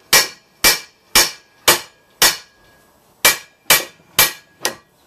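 Hammer blows on a steel universal joint from a Chevy Suburban driveshaft, held in a bench vise, each with a short metallic ring. There are five blows about two a second, a pause of about a second, then four more. The heated joint's bearing caps are stuck and are not driving out.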